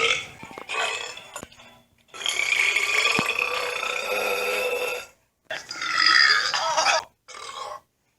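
Male belching: a string of separate belches, with one long drawn-out belch of about three seconds near the middle, then shorter ones, divided by abrupt silent gaps.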